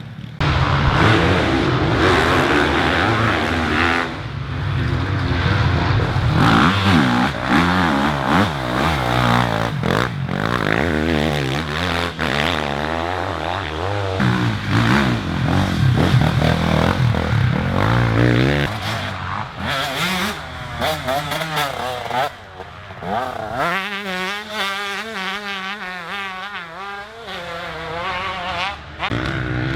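Off-road race engines revving hard, their pitch rising and falling again and again. Near the end there is a slightly quieter stretch where the revs waver quickly up and down.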